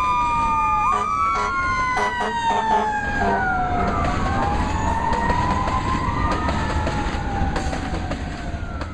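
Freight train of tank cars and covered hoppers rolling past, its steel wheels squealing in several high tones that slide slowly down and up, one jumping in pitch about a second in, over a low rumble with scattered clanks.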